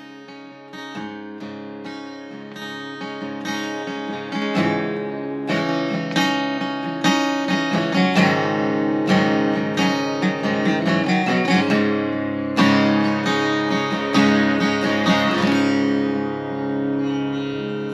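Acoustic guitar music, plucked and strummed, growing louder over the first few seconds.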